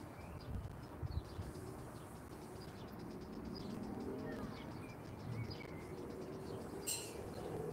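Outdoor ambience with small birds chirping faintly on and off over a low steady background, and one brief scratchy noise near the end.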